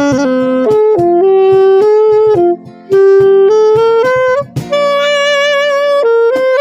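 Saxophone playing the slow melody of an old Hindi film song over a backing track with guitar and a steady beat. A long held note with vibrato comes near the end.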